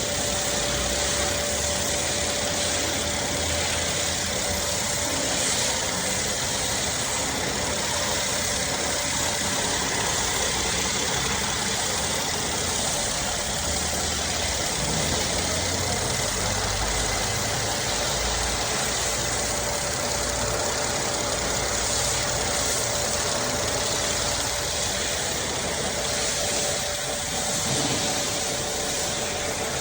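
Mercedes-Benz M276 V6 engine idling steadily.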